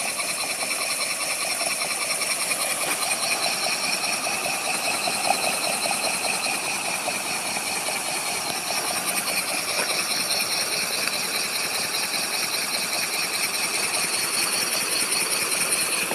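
Model steam engine running fast and steady on live steam: a rapid, even clatter of exhaust beats and moving parts over a constant hiss of escaping steam.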